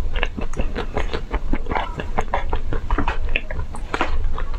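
Close-up chewing and biting of crunchy, crackling ice cream: a dense, irregular run of sharp crackles and crunches, several a second.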